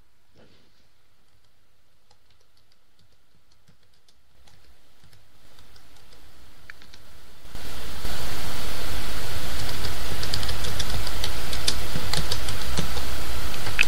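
Computer keyboard typing and clicking, faint at first. From about four seconds in, a steady rushing noise rises in steps and is loud by about eight seconds in, with the clicks going on over it.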